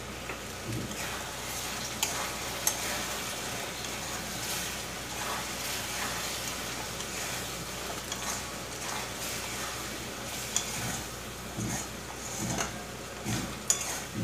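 Flat metal spatula stirring and scraping thick tomato chutney around a stainless-steel kadai, with a low sizzle from the chutney cooking down and a few sharp taps of the spatula on the pan. The chutney is at its final stage, ready to come off the heat.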